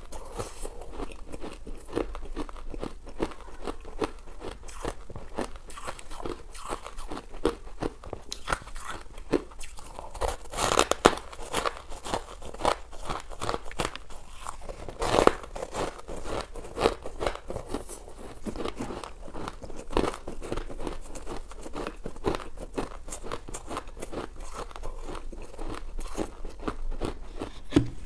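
Frost-covered ice blocks bitten and chewed close to the microphone: a dense, continuous run of crisp crunches, with louder bites about 11 and 15 seconds in.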